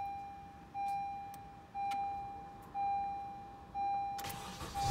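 Dashboard warning chime ringing about once a second, each tone fading before the next. Near the end, the four-cylinder engine of a 2013 Honda Accord cranks on its newly replaced starter motor and catches, settling into a low idle.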